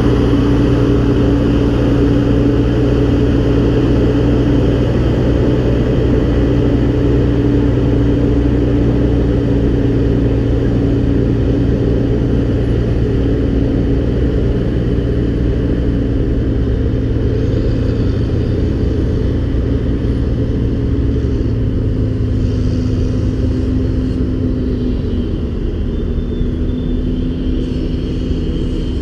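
Heavy diesel engine running steadily with a low, even drone that eases slightly in pitch and level toward the end.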